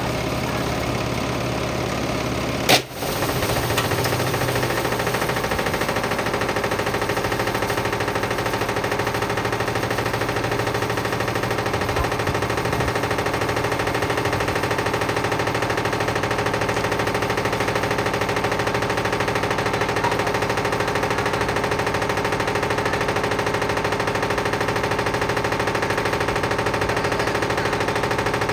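Whirlpool washing machine running with heavy bricks in the drum: continuous loud hammering and clattering of the bricks against the drum, over steady tones from the machine. A single sharp bang comes about three seconds in.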